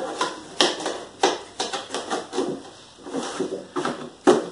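Wiring harness kit boxes and their packaging being handled and opened: a string of irregular rustles, clicks and light knocks, several a second, with a sharper knock near the end.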